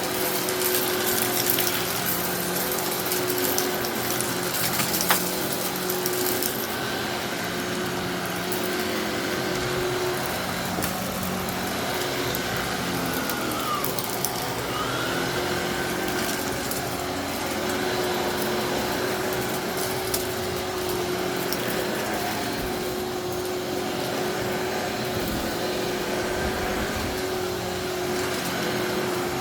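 Eureka Innova NEU700 upright vacuum running on carpet, its motor humming steadily while the brushroll picks up aquarium rocks with a light crunching rattle. The crunching is thickest in the first several seconds, then thins to scattered clicks.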